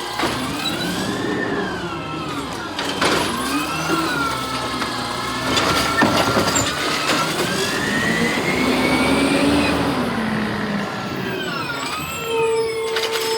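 Garbage truck engine revving up and falling back several times, with a few sharp metallic knocks, and a steady held tone near the end.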